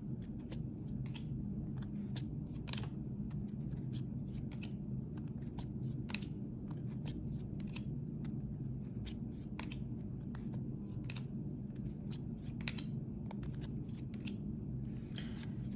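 Trading cards and their foil pack wrappers being handled, with scattered light clicks and rustles over a steady low hum.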